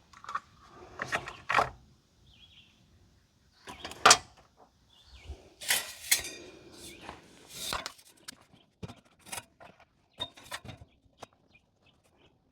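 Irregular clicks, knocks and rattles of hands handling small parts and tools, with a few sharp knocks and lighter scattered ticks near the end.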